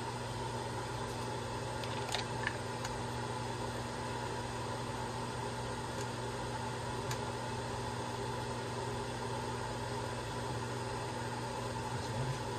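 A steady mechanical hum from a fan or motor, with a few faint light clicks.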